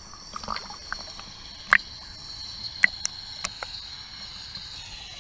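Small waves lapping and splashing against a camera floating at the water's surface, with several sharp, short splashes and ticks against the housing, the loudest just under two seconds in and twice near the three-second mark. A faint steady high whine runs underneath.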